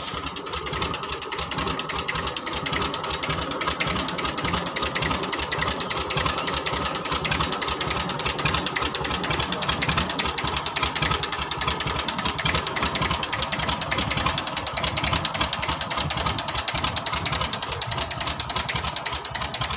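Massey Ferguson 1035 DI tractor's 35 hp three-cylinder diesel engine running steadily at idle, a rapid even knocking of firing strokes.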